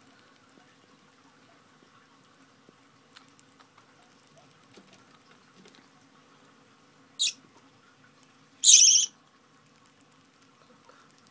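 Young budgerigars calling while being hand-fed from a spoon: a short shrill chirp about seven seconds in, then a longer, louder squawk a second and a half later, begging calls for food.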